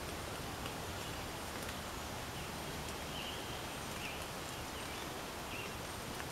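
Woodland ambience: a steady low rumble under faint, short bird chirps that repeat about once a second through the middle.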